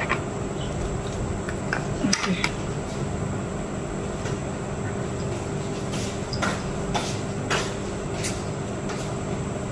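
Steady background noise with a low hum, broken by a few light clicks and taps, one as a metal fork is put down beside the flaked boiled fish.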